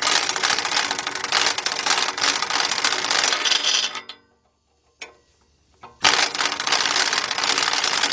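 Half-inch-drive impact gun with a 14 mm deep socket hammering on a catalytic converter bolt, in two long runs about two seconds apart with a short click in the pause between them.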